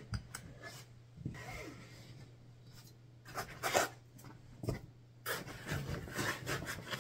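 Hands rummaging in a cardboard box packed with foam inserts: foam and cardboard rubbing and scraping in several short bursts, the loudest about three and a half seconds in and through the last two seconds, over a low steady hum. Picked up by a phone's microphone.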